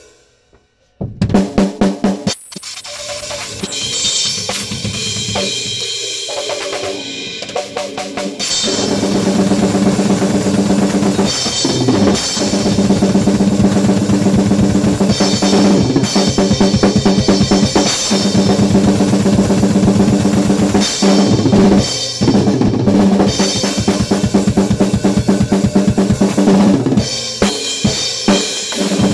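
Acoustic drum kit played hard and fast with sticks: a few sharp hits after a moment's pause, a quieter stretch of drums and cymbals, then from about eight seconds in a dense, loud run of rapid drum strokes and crashing cymbals, broken by a few brief stops.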